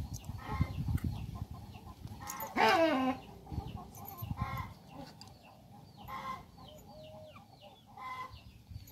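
Chickens clucking in short repeated calls, with one louder call about two and a half seconds in that falls in pitch, and faint high chirps between them.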